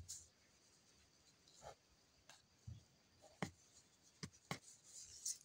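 Faint rustling of a hand stroking a cat's fur against cardboard: about half a dozen short, soft scratchy rubs spread out over a near-silent background.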